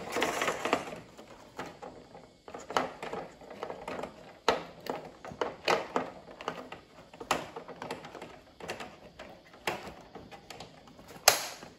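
Scattered clicks, knocks and light rattles of a metal product-elevation strip being slid into a plastic vending-machine spiral tray lane and clipped in place, with a sharper click near the end.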